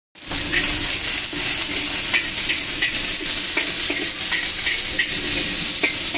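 Shredded cabbage and vegetables sizzling in a large wok over a gas burner, with a long metal spatula scraping and tapping against the wok about twice a second as the chowmein vegetables are stir-fried.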